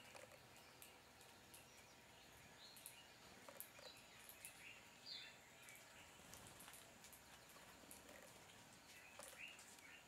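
Faint, scattered short chirps from a flock of weavers feeding on the ground, with small high ticks in between.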